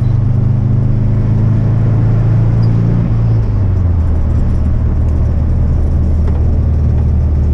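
1971 VW Beetle's 1600 dual-port air-cooled flat-four running hard under load, heard from inside the cabin, with its pitch dropping about three seconds in as the revs fall.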